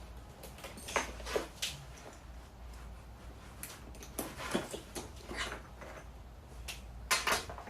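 Handling of a trumpet case's strap: a scattered series of short, soft clicks and rustles, with a small cluster near the end.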